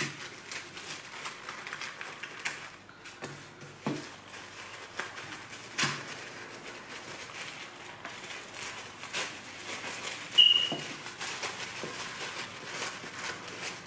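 Dark wrapping paper being pulled and torn off a box by hand, rustling and crinkling in short irregular crackles. About ten seconds in there is a brief high squeak, the loudest sound.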